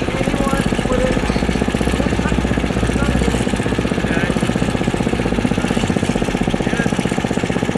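A 10 hp Briggs & Stratton gasoline engine running steadily on the percussion well-drilling rig it powers, with a fast, even pulse.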